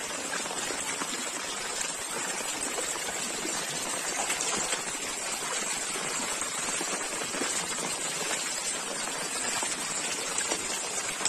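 Steady rain falling on floodwater, a dense even patter of drops with no let-up.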